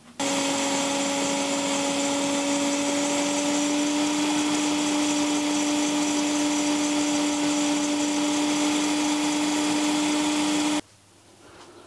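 Palm-router toolpost grinder running at speed on a lathe, its small grinding wheel grinding the work turning in the chuck. A steady hum and high hiss start just after the beginning and cut off suddenly near the end.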